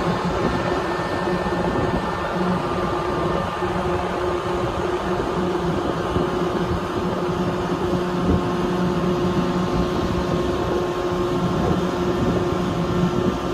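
A boat's engine running steadily: a continuous drone with a low hum and a few steady higher tones.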